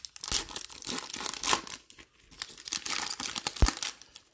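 Foil wrapper of a Topps Holiday Baseball card pack being torn open and crinkled by hand, in a run of short rips and crackles. A single sharp thump comes near the end.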